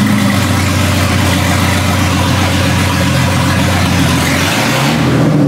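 Swapped-in BMW M3 inline-six in an E30 idling steadily. It is running again now that its fuel pump has power, after a corroded, broken fuse was replaced. Its note changes and rises near the end as it is revved.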